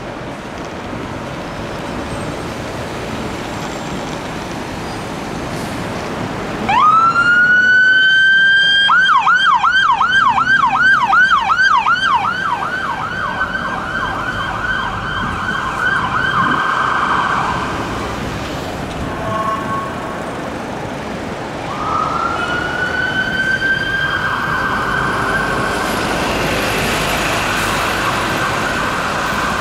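Fire engine's electronic siren on a Scania P410 turntable ladder, over city traffic noise. About seven seconds in it winds up to a held wail, switches to a fast yelp, returns to a held tone and fades out. About two-thirds of the way through it winds up again and holds steady to the end.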